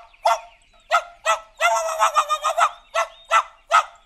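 Cartoon dog character barking in short yips, about two a second, with one longer drawn-out call about a second and a half in.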